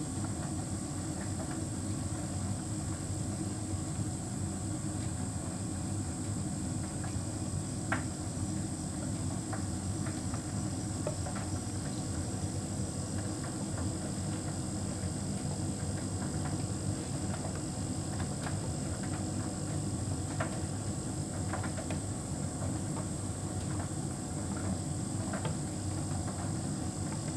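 Hotpoint heat pump tumble dryer running, the drum turning with a steady low hum, a faint high-pitched tone above it and occasional light taps.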